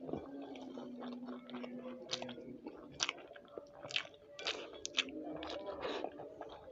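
Close-miked chewing of a mouthful of rice, with a string of short sharp mouth clicks and smacks, several in the second half.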